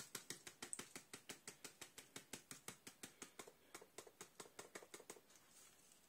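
Fast, light tapping on a seasoning sachet to shake the powder out, about six taps a second, growing fainter and stopping about five seconds in.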